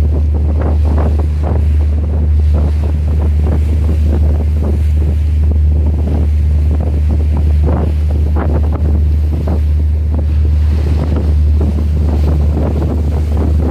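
Wind buffeting the microphone at sea, with waves splashing and a steady low rumble underneath.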